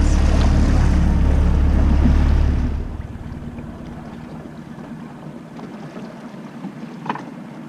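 Wind buffeting the microphone on a small boat under way, a loud, even low rumble that cuts off suddenly a little under three seconds in, leaving a much quieter wash of open water.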